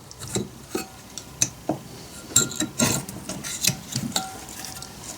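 Small metal clicks and scrapes as a wrist-pin circlip is worked into its groove in a chainsaw piston, with irregular light taps of metal on metal.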